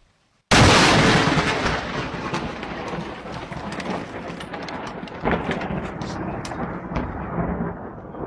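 A close lightning strike: a sudden loud thunderclap about half a second in, then rolling thunder with crackles, and a second sharp crack about five seconds in.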